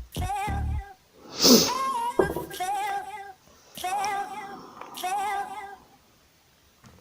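Background music with a high, wavering vocal line in short repeated phrases, about one a second.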